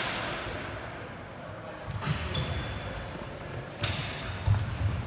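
Fencers' footsteps thudding on a wooden sports-hall floor during a bout, with two sharp knocks, about two seconds in and near four seconds.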